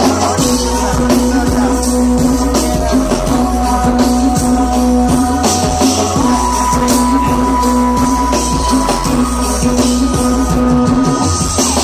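Live band playing an instrumental stretch of a song: drum kit and hand percussion beating steadily under a sustained held note, loud throughout.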